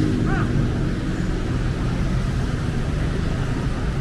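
Steady low rumble of street traffic, with a vehicle engine's hum dying away in the first moment.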